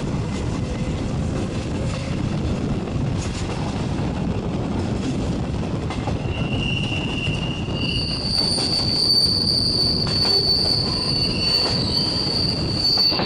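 Passenger coaches of a regional train rolling on the rails, heard from an open coach window: a steady rumble. From about six seconds in, the wheels squeal high and shrill as the train takes a curve, and the squeal is loudest over the last few seconds.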